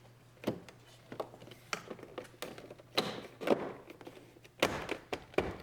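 A series of short plastic clicks and knocks as a door switch panel is pressed and snapped into the door trim, with a cluster of louder thunks near the end.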